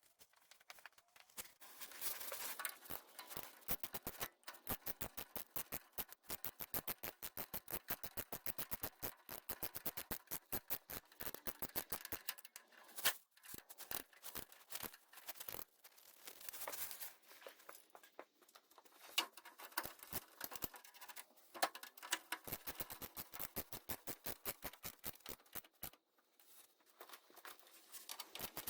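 Socket ratchet clicking in long runs of quick, even clicks, with short pauses between runs, as bolts are turned.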